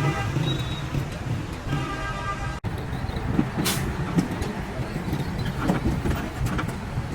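Motor vehicle engine running with a steady low rumble, with a brief hiss a little over halfway through.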